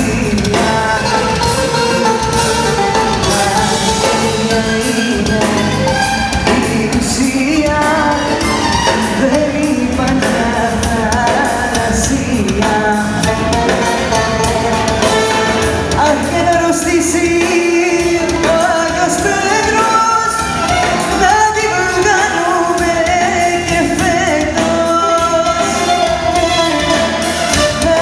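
Live Greek popular music: a woman singing into a microphone over an amplified band of drums, keyboards and stringed instruments, continuous and loud.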